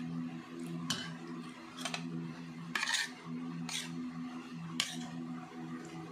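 A metal spoon clinking and scraping against a ceramic plate while someone scoops rice: about five short clinks, roughly one a second.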